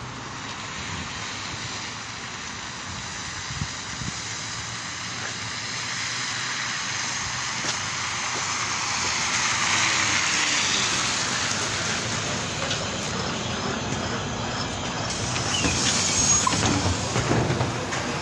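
A LiAZ-5292 city bus pulling in to the stop over steady street traffic, its engine and tyre noise on the wet road loudest about ten seconds in. Near the end the bus engine is heard from inside the cabin, with a few clicks.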